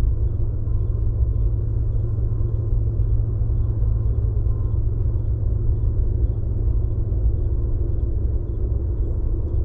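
Steady low rumble of wind buffeting the camera microphone, with faint high ticks repeating about twice a second.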